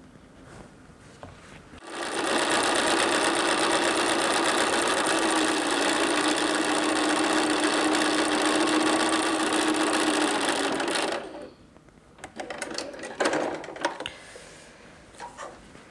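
Bernina sewing machine stitching a seam through cotton quilt fabric, starting about two seconds in, running steadily and stopping abruptly about nine seconds later. A few short rustles and knocks of the fabric being handled follow.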